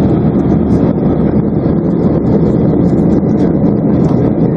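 Steady engine and airflow noise inside the cabin of a Boeing 737-800 airliner in flight: a low, even rumble with no change in level.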